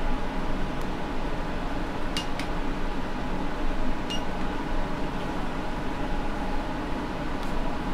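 Steady whir of a fan running, with a faint steady hum in it and a few faint light clicks about two and four seconds in.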